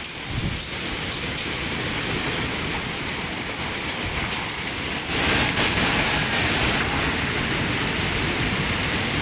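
Landslide debris, mud, rock and a collapsing house's wreckage, sliding and crashing down the slope: a continuous rushing rumble. There is a brief low thud just after the start, and the rumble grows louder about five seconds in.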